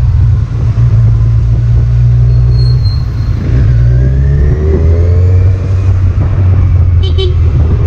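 Kawasaki Z1000 motorcycle's inline-four engine running on the road, a steady low drone that drops in pitch about halfway through.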